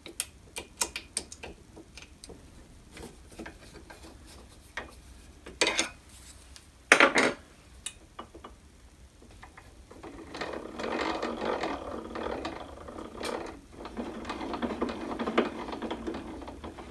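Scattered clicks and a couple of knocks from a hex key and metal parts being handled, then from about ten seconds in a continuous rough gear noise as the handwheel is turned by hand, driving the drill press table's Z-axis gears and ballscrew; the mechanism runs super quiet.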